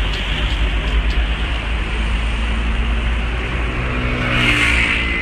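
Wind buffeting a phone microphone over city street traffic: a heavy, uneven rumble with traffic noise, swelling a little near the end.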